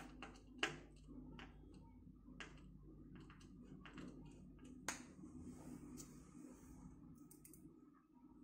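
Faint, irregular clicks and taps of computer parts being handled and fitted into a PC case.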